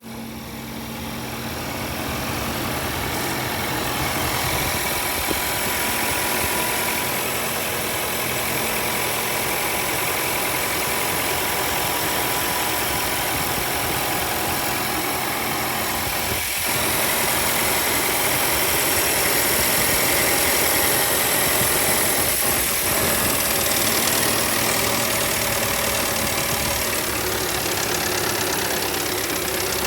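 2019 Audi Q5's 2.0-litre turbocharged four-cylinder engine idling after a cold start, with a brief rattle from the engine after the idle drops. The owner hears the rattle toward the back of the engine and wonders if it is a camshaft actuator.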